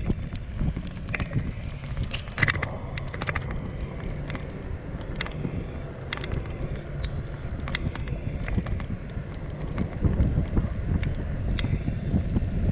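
Longboard wheels rolling on asphalt: a steady low rumble with scattered sharp clicks from the board and grit on the road, and wind buffeting the microphone. The rumble grows louder near the end.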